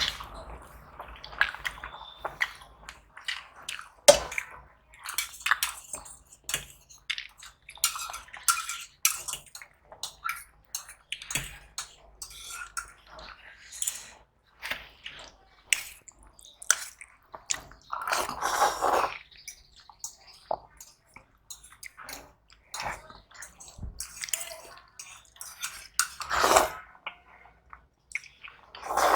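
Close-miked eating sounds from someone eating noodles, cutlet and fries: wet chewing and lip smacks with many quick irregular clicks. Two longer, louder sounds come about two-thirds of the way in and near the end.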